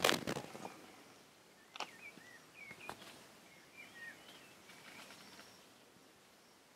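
Small birds giving short chirps in the surrounding trees, scattered through the first five seconds. The loudest sound is a knock at the very start, with two fainter sharp clicks a couple of seconds later, from a small stone being handled and set down on stone paving.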